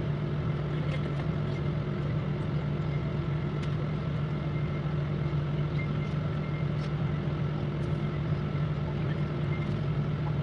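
Steady drone of a moving vehicle's engine and road noise heard from inside the cabin, a constant low hum with a few faint ticks and rattles.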